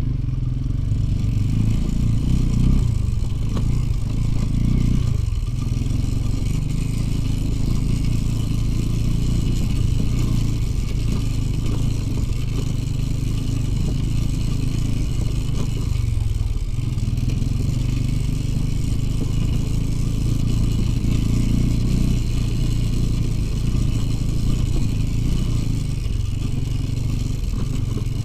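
A two-stroke Soviet motorcycle engine running continuously while the bike rides along, its note dipping briefly twice.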